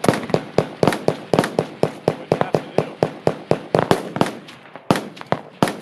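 Automatic gunfire: a long string of sharp shots at about four to five a second, with a brief break near the end before a last few shots.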